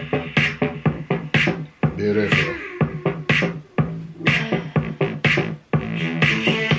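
Hip hop style electronic music with a vocal line, playing through a small 5-watt Goodmans Bluetooth rock speaker. A strong beat falls about once a second, with lighter hits between.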